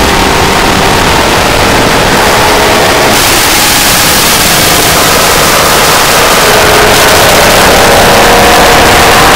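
Harsh noise music: a dense wall of electronic static and noise at near full volume. It turns brighter and harsher in the top about three seconds in, and steady held tones come through in the middle range in the second half.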